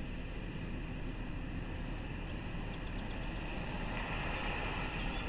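Steady outdoor background noise: a low rumble with hiss and a faint steady high hum, the hiss growing a little about four seconds in.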